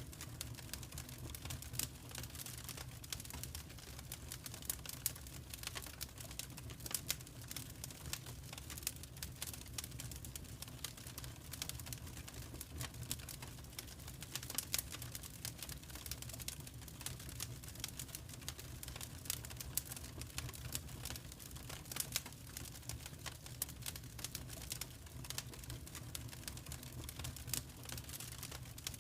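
Fireplace fire crackling: dense, irregular crackles and pops over a steady low rumble.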